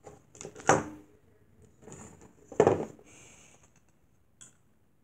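Handling noise close to the microphone: a toy being moved and bumped against the device, giving two sharp knocks about two seconds apart, with smaller clicks and a short rustle between them.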